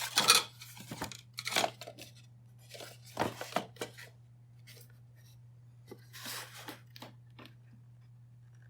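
A few short rustling, tearing and scraping noises, loudest right at the start, from materials being handled on a workbench, over a steady low hum.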